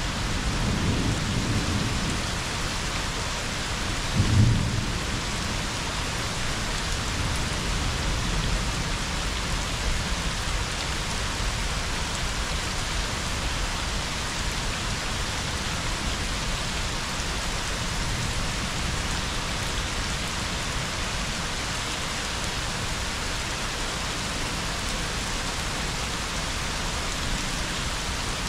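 Steady rain falling in a thunderstorm. Low thunder rumbles through the first couple of seconds, with a short, louder roll about four seconds in.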